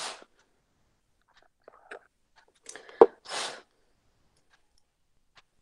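Short, hissy breath puffs and mouth noises close to a microphone, with one sharp click about three seconds in, the loudest sound.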